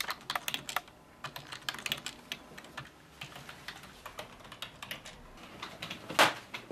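Fast, irregular typing on a computer keyboard, individual key clicks in quick runs, then one loud slap near the end as a paper folder is put down on the desk.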